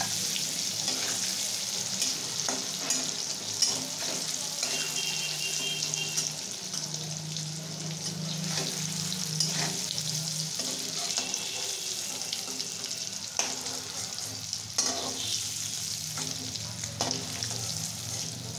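Paneer cubes frying in oil in a kadai: a steady sizzle, with a steel spatula scraping and knocking against the pan every second or two as the pieces are stirred and turned.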